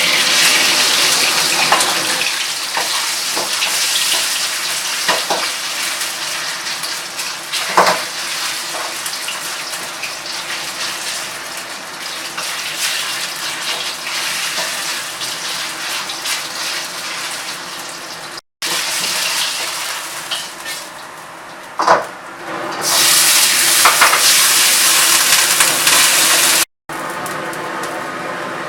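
Food sizzling hard in hot oil in a wok, with a few sharp knocks of a metal utensil against the pan.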